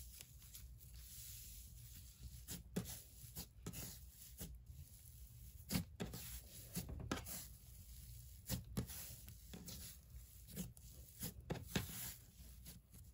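Elmer's Strawberry Cloud slime being stretched, pulled apart and kneaded by hand. It gives faint, irregular crackles and squishes as the fluffy, wet slime tears and is pressed against the table.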